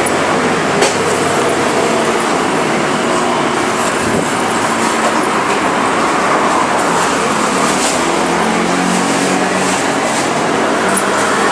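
Steady noise from a turning motorcycle wheel with a 280 mm brake disc, which makes an abnormal noise as it rotates.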